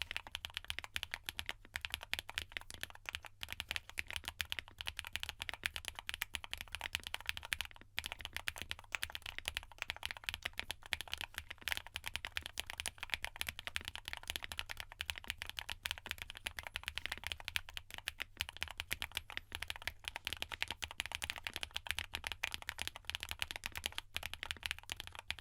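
Fast, continuous typing on a QwertyKeys QK65 custom mechanical keyboard: POM case, gasket mount, plate and case foam, ZAKU linear switches lubed with 205g0, Domikey Vintage keycaps. It gives a dense stream of keystroke clacks with the damped, foam-heavy sound the build is known for, broken by a few short pauses.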